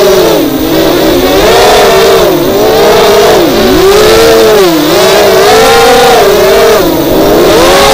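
FPV racing quadcopter's four 2206 2000 kV brushless motors on 5-inch bullnose props whining loudly. The pitch keeps rising and falling as the throttle is worked, dipping sharply several times.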